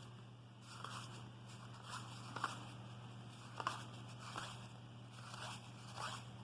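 Cardboard baseball cards being flipped through and set down one at a time: soft ticks and snaps every second or so, over a low steady hum.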